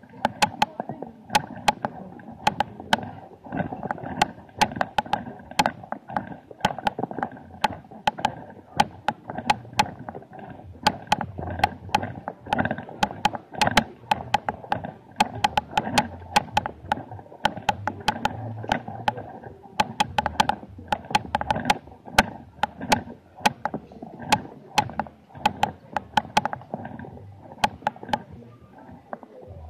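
Murmur of a pedestrian crowd in a busy street, broken by frequent sharp clicks, two or three a second at irregular intervals, which are louder than the murmur.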